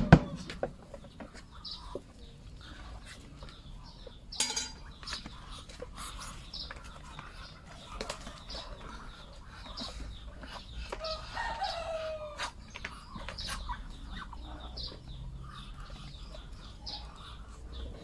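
A flock of Muscovy ducks calling, with many short soft chirps and clucks scattered throughout and one longer falling call about eleven seconds in. A loud sharp knock comes at the very start, and a brief rustling burst about four seconds in.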